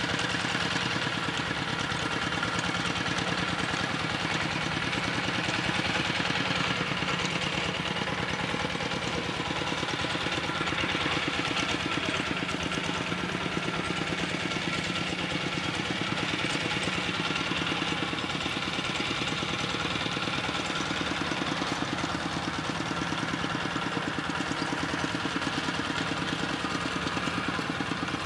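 A small engine running steadily at a constant speed, with a fast, even firing beat.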